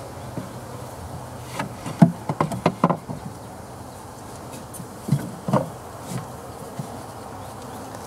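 Honeybees buzzing steadily around an open hive, with a run of sharp wooden knocks and clicks about two to three seconds in and a few more around five seconds, as the hive's wooden frames are handled and shifted.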